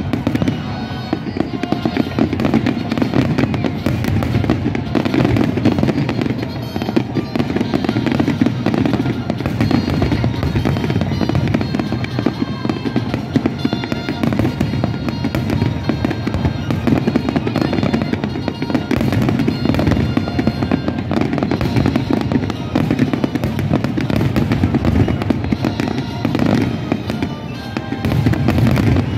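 Fireworks display: a dense, unbroken run of bursts and crackles, with music playing underneath.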